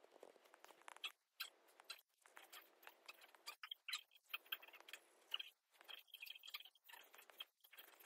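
Faint, irregular ticks and light scratching of a stylus tapping and stroking across a tablet's glass screen.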